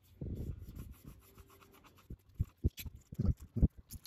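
Cotton swab scrubbing inside the bolt holes of a cast oil pump body to clear out oil: a scuff near the start, then a run of short, quick rubbing strokes in the second half.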